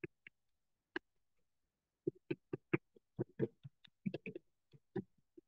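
Meat masher chopping browned ground turkey in a frying pan: a string of short dull taps against the pan, a pause of about a second, then a quick run of about four taps a second.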